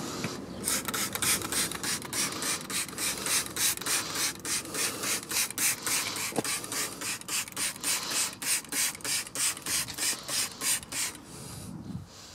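Wheel brush scrubbing a car's alloy wheel coated in wheel cleaner, working off brake dust: a quick, even back-and-forth rasping of about four strokes a second that stops about a second before the end.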